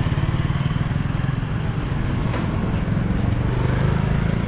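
Busy street traffic: a small motorcycle engine running close by, with the hum of other traffic behind it, a little louder near the end.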